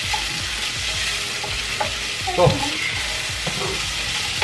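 Onion and garlic sizzling in oil in a saucepan, being softened. A wooden spoon stirs them with repeated scraping strokes against the pan.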